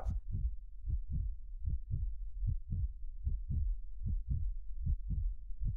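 A heartbeat sound: rapid, evenly paced low thumps, about four a second.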